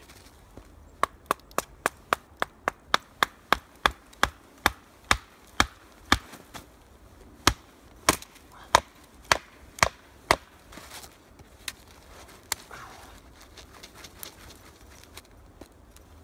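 A wooden baton strikes the spine of a JaktKit KNV2 fixed-blade knife, batoning it down through a small stick to split it. About two dozen sharp knocks come in quick succession, roughly three a second at first, then slower and harder. They stop about ten seconds in, and a few lighter taps follow.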